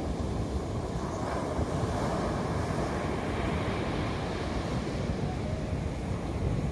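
Steady rushing noise with gusty low rumble from wind buffeting the microphone.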